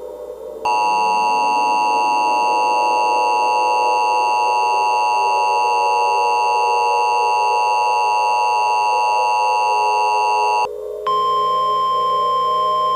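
Emergency Alert System attention signal: a steady, loud two-tone alarm held for about ten seconds. After a brief break it gives way to a single steady tone lasting about two seconds.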